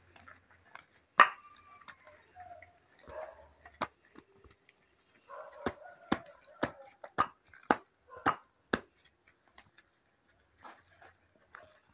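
Footsteps in flip-flops climbing dirt-and-plank steps: a run of sharp slaps about two a second through the middle, with scattered single slaps before and after.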